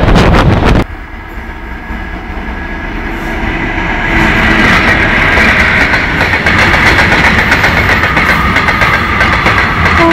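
A loaded freight train of open wagons running past, its wheels clattering over the rail joints and growing louder over the first few seconds, with a steady high-pitched ring joining in as an electric locomotive hauling an express approaches on the adjacent line. It starts after a sudden cut from a louder passing train in the first second.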